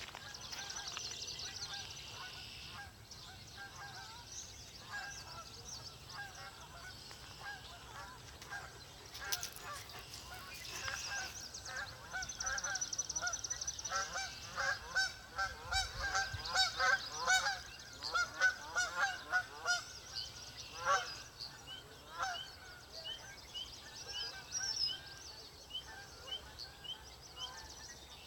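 Geese honking over and over, busiest and loudest in the middle stretch, with small birds chirping and trilling high above them throughout.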